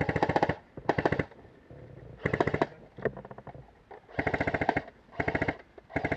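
Airsoft electric rifle (AEG) firing six short full-auto bursts, each a rapid string of clicks lasting under half a second, with brief pauses between them.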